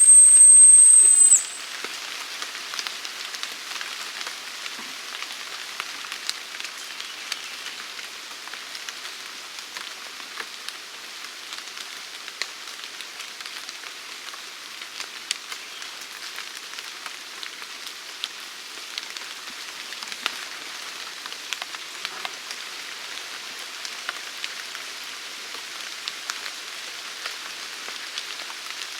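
A dog whistle blown in one long steady high-pitched tone that cuts off about a second in, followed by steady rain falling with scattered drop ticks.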